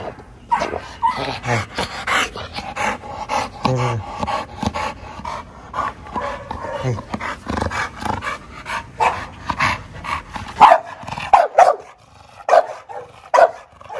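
Grey pit bull-type dog panting hard and vocalising in excited short bursts while being petted, with a few loud sharp barks near the end: an excited greeting of a person it has missed.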